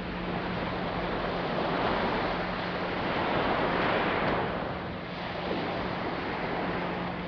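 Sea surf washing onto a sandy beach, with wind on the microphone; the wash swells to its loudest a few seconds in, then eases.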